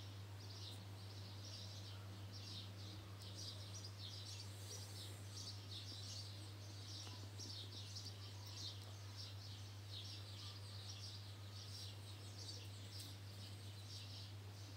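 Faint, even chirping in a high register, about two to three chirps a second without a break, over a steady low hum.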